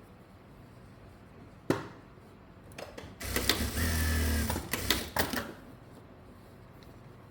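Electric sewing machine running in one short burst of stitching, about two seconds long, starting about three seconds in, with a steady low hum. A single sharp click comes a little over a second before it, and a few clicks sound as it stops.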